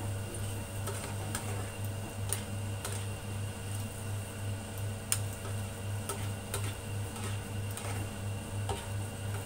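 Glass-top electric cooktop humming, its low hum pulsing evenly about three times a second, with a few light clicks of wooden chopsticks against the nonstick pan as the stir-fried vegetables are turned.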